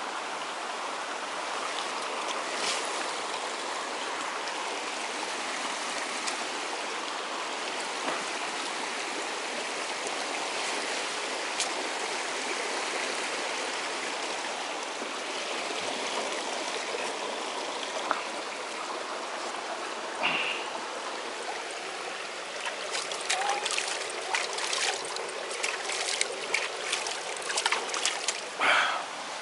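Water running steadily in a stream. In the last six seconds or so, a scatter of sharp clicks and knocks.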